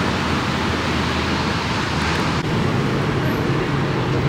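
Steady vehicle noise, a continuous rumble and hiss. A low hum comes in about halfway through.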